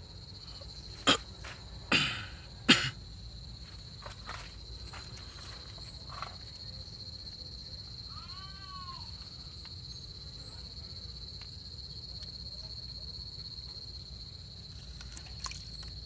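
Steady high-pitched drone of insects, like crickets, with three sharp knocks in the first three seconds that are the loudest sounds, and a short chirping call about eight seconds in.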